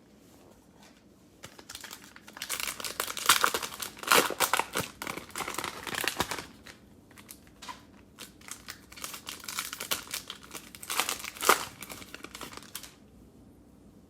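Plastic cello pack wrapper of basketball trading cards crinkling and tearing as the pack is opened, in two spells of dense crackling, the louder from about two to six seconds in and another around eleven seconds.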